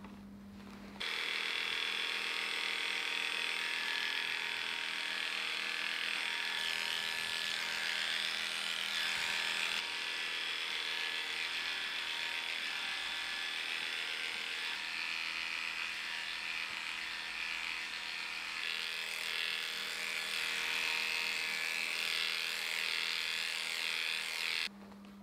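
Heiniger Saphir cordless animal clipper switching on about a second in and running steadily as it clips a poodle's coat, then cutting off near the end.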